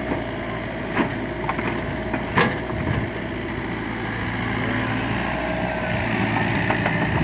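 LiuGong mini excavator's engine running steadily while it works, with sharp knocks about one second and two and a half seconds in, and growing a little louder over the last couple of seconds.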